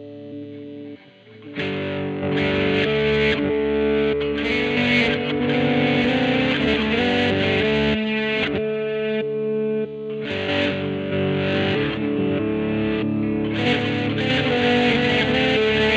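Electric guitar, a Fender Jazzmaster HS Blacktop converted to a 'Jazzblaster', played with distortion through a Peavey Vypyr VIP2 amp. A quieter held chord fades out, then about a second and a half in a louder stretch of distorted playing starts, with a brief let-up about ten seconds in.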